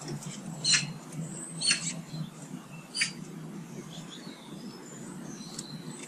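Garden birds calling: three short, sharp chirps about a second apart in the first three seconds, then fainter high chirps, over a steady low background rumble.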